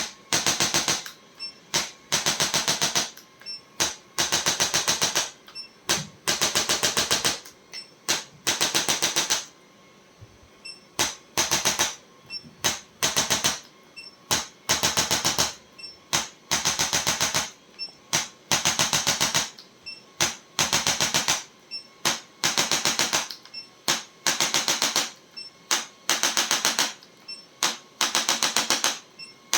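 Bursts of rapid mechanical clicking from a handheld electric chiropractic adjusting instrument delivering quick repeated thrusts. Each burst lasts about half a second to a second and a half, with short pauses between them.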